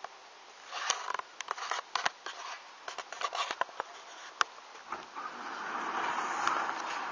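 Scattered light clicks and rustles, then, about five seconds in, a steady mechanical noise builds up and holds as a motorised sectional door of a fire engine bay starts to roll up.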